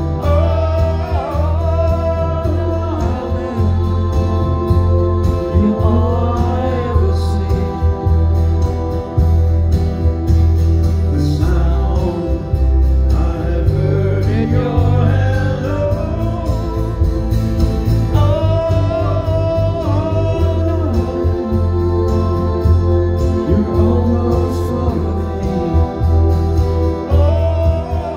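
Live concert music: singing over amplified acoustic guitar, with a strong, heavy bass throughout.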